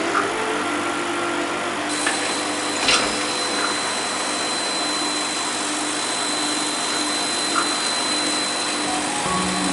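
Steady whirring fan-and-motor machine noise with a thin high whine, and one brief click about three seconds in.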